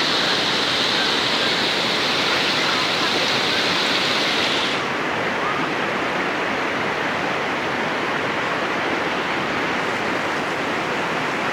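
Waterfall: a steady rush of falling water. The upper hiss drops away suddenly about five seconds in.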